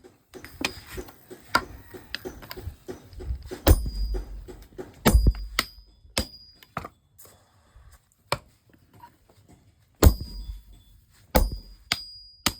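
Hammer blows on metal over an anvil, each with a short metallic ring. A quick run of light taps comes first, then about half a dozen heavier, spaced-out strikes, with a near-quiet gap of a few seconds between them.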